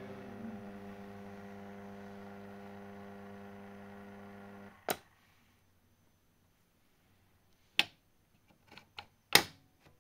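Riviera suitcase record player's amplifier giving a steady mains hum, which stops about five seconds in with the click of its switch. Then a few sharp clicks and knocks as the tonearm and controls are handled, the loudest near the end.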